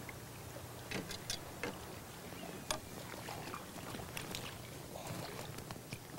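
A hooked flathead (magochi) splashing at the surface beside an inflatable boat as it is brought in, over lapping water, with a string of short sharp splashes and ticks.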